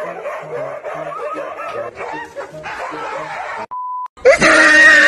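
Several dogs barking and yipping together. About three and a half seconds in, this cuts to a steady half-second test-tone beep, and after it a much louder passage begins near the end.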